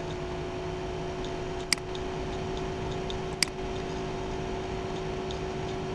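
Two sharp computer mouse clicks, about a second and a half apart, over a steady low electrical hum.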